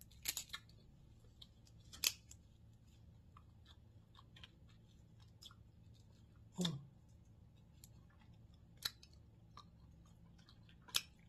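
Crab leg shells being cracked and snapped apart by hand: sharp cracks every few seconds, about five in all, with fainter ticks of shell between them.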